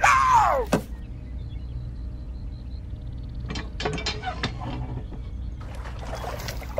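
Light knocks and soft water sounds as small box moulds are pushed down into shallow muddy water, over a low steady hum. A short falling tone sounds at the very start.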